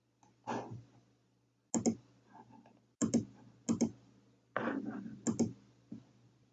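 Computer mouse button clicks, four sharp ones, each a quick double snap of press and release, with two duller, longer handling sounds between them.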